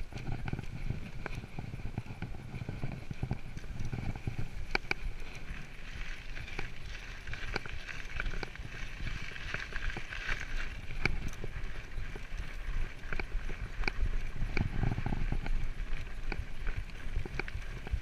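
Mountain bike rolling over grass and a gravel fire road, with tyre crunch, a low rumble and frequent irregular clicks and knocks as the bike rattles over bumps.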